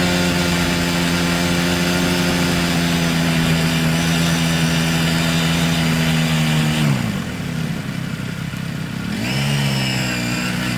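Honda Grom's 125 cc single-cylinder four-stroke engine running steadily at cruising revs. About seven seconds in the throttle closes and the revs fall away, quieter for a couple of seconds, before the engine picks up again near the end.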